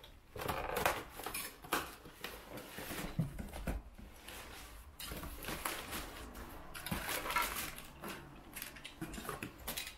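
Crumpled packing paper and cardboard rustling and scraping as a clutch kit box is unpacked by hand, with the occasional clink of the metal clutch parts.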